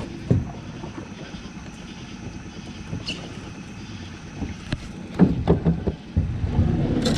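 Hollow knocks and thumps on the hull of an aluminum jon boat, several in quick succession about five seconds in, during the fight to land a catfish. A steady low hum comes in near the end.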